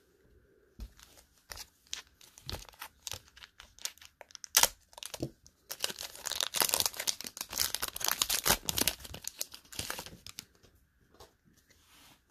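Foil wrapper of a Pokémon booster pack crinkling and crackling as it is handled, then torn open with dense, loud ripping and crinkling through the second half that eases off near the end.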